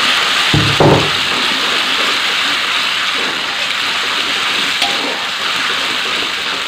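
Pounded chilli paste sizzling steadily in hot oil in an aluminium wok as it is stirred with a metal spatula, with one dull knock a little under a second in.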